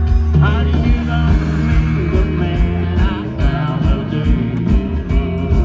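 Live country rock band playing, with electric guitar over bass and a steady drum beat.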